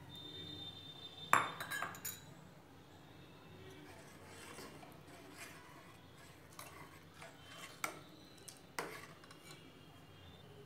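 A steel spoon stirring a soupy pot of greens and knocking against the metal pot, with a quick cluster of sharp clinks about a second in, then single clinks every second or so.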